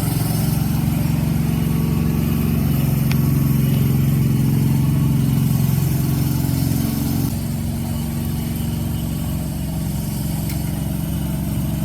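Honda Civic engine idling steadily, the idle dropping to a lower, quieter note about seven seconds in.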